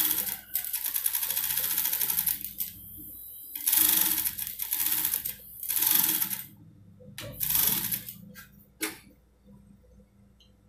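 TYPICAL industrial single-needle lockstitch sewing machine stitching: one run of a couple of seconds, then after a pause three short bursts, stitching back over the seam end to reinforce it. It stops about eight seconds in, followed by a single click.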